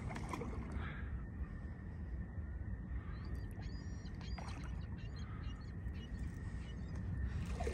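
Steady low wind rumble on the microphone, with a few faint bird chirps about three to five seconds in.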